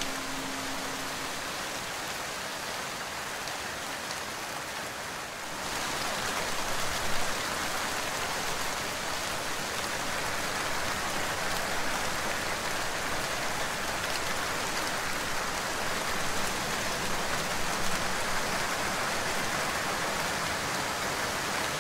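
Steady rain falling, growing louder about five seconds in.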